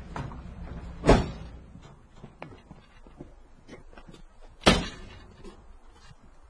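A door slams shut twice, about three and a half seconds apart, with lighter knocks in between. A low vehicle engine rumble dies away just before the first slam.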